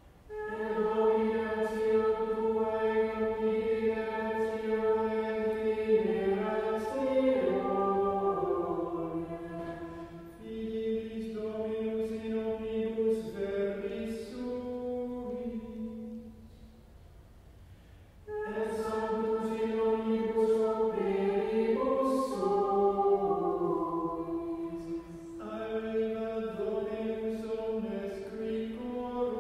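Choir singing Latin psalm verses in unison plainchant (Mozarabic psalmody), each phrase held on one reciting pitch and closing with a short melodic cadence. Two verses are sung, each in two halves, with short pauses between the phrases.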